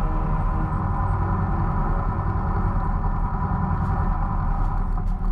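Volvo LM225 loader tractor's engine running steadily under load as it drives forward pushing a bucket of snow.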